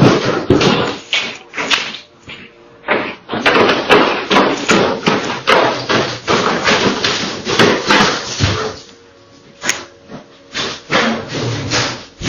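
A door being forced: repeated heavy bangs and thuds, two or three a second, thinning out to a few scattered knocks over the last few seconds, heard through a doorbell camera's microphone.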